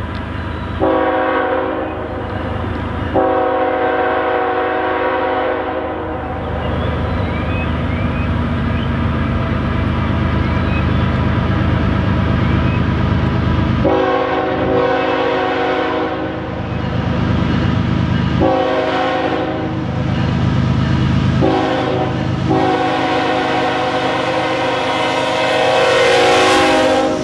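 Canadian National freight locomotive's air horn sounding its chord in repeated blasts for a grade crossing: two early, then after a pause the crossing pattern of long, long, short, long. Underneath, the rumble of the approaching diesel locomotives grows until they pass close by near the end, the loudest moment.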